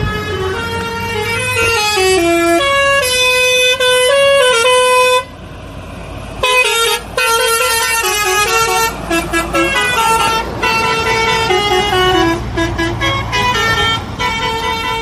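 Truck's multi-tone musical air horn playing a tune in held, stepped notes, pausing for about a second some five seconds in and then playing on, over a low engine rumble.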